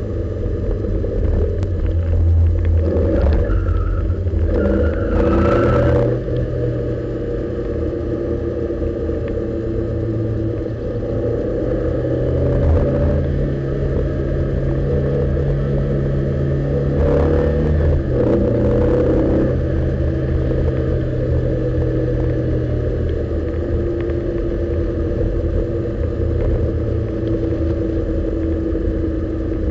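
Lotus Elise S1's mid-mounted Rover K-series four-cylinder, heard from inside the cabin, running at moderate revs down a twisty road. The engine note steps with gear changes between second and third.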